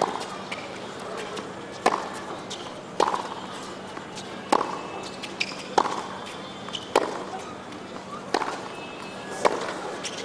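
Tennis rally: a sharp racket strike on the ball about every second and a quarter, eight hits in turn, over a steady background hum.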